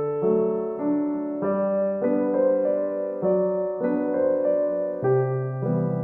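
Background music on piano or electric piano: a gentle melody of chords changing about every half second.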